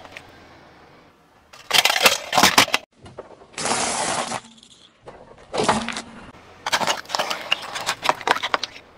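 A car tyre rolling over and crushing small brittle objects, among them dry tube pasta, in four separate bursts of crunching and crackling with short gaps between. The last burst has a metallic clinking crunch as small metal cups are flattened.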